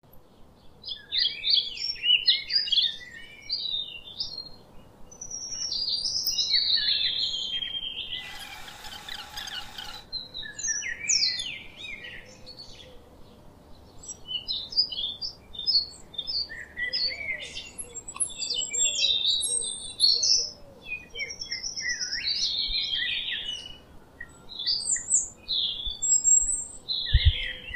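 Birds chirping, many short, varied high calls overlapping one another, with a two-second hiss about eight seconds in and a brief low thump near the end.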